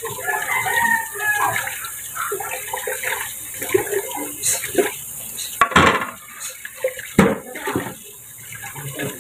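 Dishwashing at a kitchen sink: water running from the tap while dishes and utensils clatter, with a couple of sharper knocks about six and seven seconds in.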